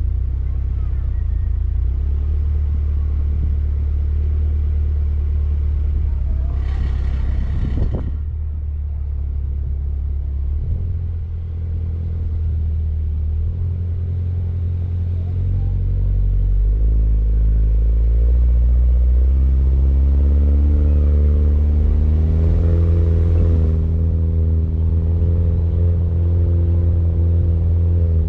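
Mini Cooper Countryman All4 engine running as the car drives off-road. The engine note climbs steadily from about halfway through as it pulls, then holds steady. A short rushing noise comes about a quarter of the way in.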